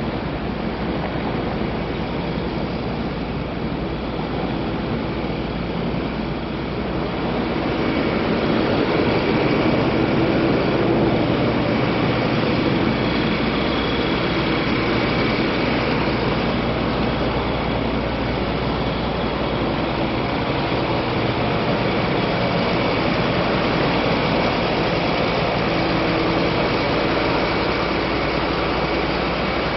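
Steady city street noise with a low engine rumble, growing louder about eight seconds in.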